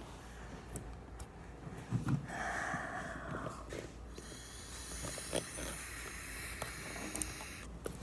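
Air sucked by mouth through a plastic straw into a jar-and-lid homemade vacuum: a short rushing draw, then a longer hissing one. The suction is picking up no red pepper into the jar.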